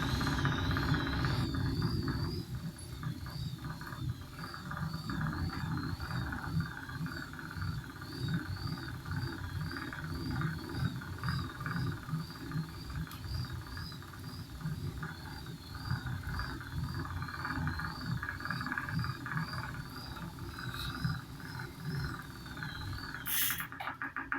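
An Arion Digital machine running with a knocking fault: irregular low knocks throughout, under a thin high whine that wavers regularly up and down.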